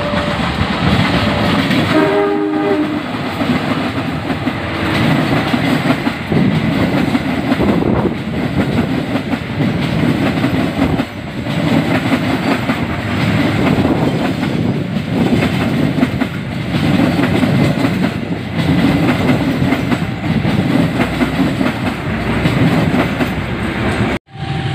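Passenger train double-headed by two CC201 diesel-electric locomotives passing close by. A short horn blast sounds about two seconds in, followed by the steady rumble of the engines and the clatter of the coaches over the rail joints. The sound cuts off abruptly just before the end.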